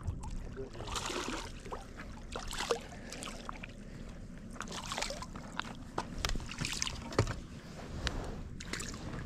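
Light splashing and scattered short clicks and knocks as a small bass is reeled in through shallow water and landed on a concrete boat ramp.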